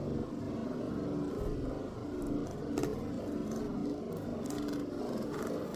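Steady low mechanical hum with a constant pitch. A few light clicks and rustles of a cardboard box being handled sit over it, about three seconds in and again near the end.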